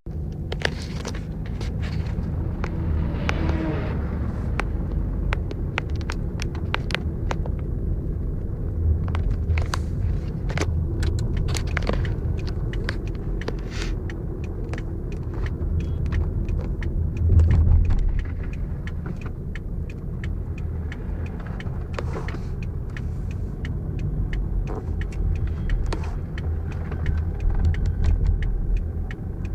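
Steady low rumble of a motor vehicle running, with many small clicks and knocks scattered through it and a brief louder swell a little past the middle.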